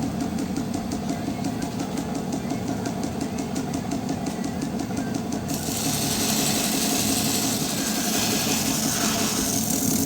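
Belt grinder running steadily with a fast, even ticking from the belt. About five and a half seconds in, a loud grinding hiss joins in as the sword blade is pressed to the abrasive belt.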